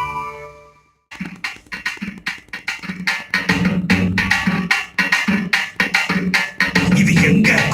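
Music played through an F&D F203G 2.1 speaker system. One track fades out, there is a brief gap about a second in, and then a drum-heavy track starts with a fast, steady percussive beat over a strong bass line.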